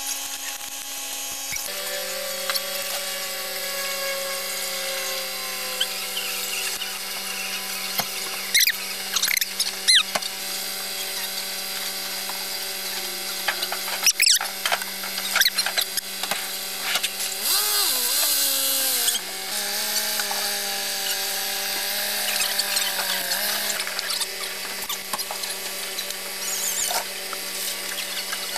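Sped-up recording of a 4x4's engine running while it pulls a boat trailer up a slipway, heard as a steady high-pitched whine. Brief squeaky chirps sound about a third of the way in and again about halfway, and near two-thirds in the pitch wavers and drops before settling.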